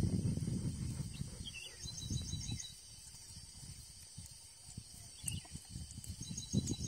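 Outdoor insect chorus: a steady high drone with short repeated chirping trills. A low rumbling noise is loudest in the first two seconds and returns near the end.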